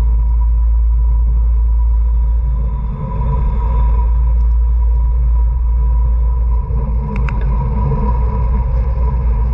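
Wind buffeting the microphone of a camera moving with a racing bicycle: a steady, loud low rumble with tyre road noise and a faint steady whine. Two brief clicks come about seven seconds in.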